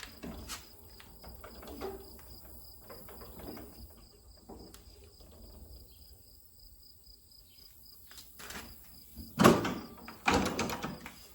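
Crickets chirping steadily, with scattered faint clicks and handling noises, then two loud sudden knocks near the end.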